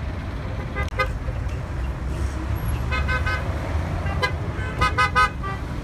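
Street traffic with a steady low engine rumble, punctuated by short car-horn toots: a quick pair about a second in, a few around three seconds, and a rapid string of the loudest toots near the end.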